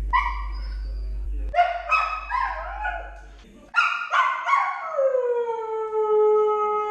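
Young Siberian husky howling from separation anxiety at being left alone. A few short yips and woo-woo calls come first, then from about four seconds in one long howl that slides down in pitch and holds.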